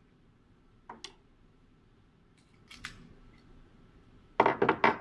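Sharp metallic clicks and clacks from a Laugo Alien pistol being handled as its slide and slide stop are worked. There are two light clicks about a second in and another near three seconds, then a quick run of four loud clacks near the end.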